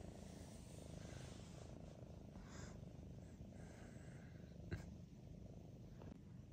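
Domestic cat purring softly and steadily, with one short click about three quarters of the way through.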